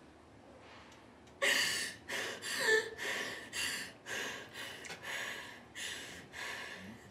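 A woman sobbing: a run of sharp, gasping breaths about two a second, starting about a second and a half in, with a brief whimpering cry near the middle.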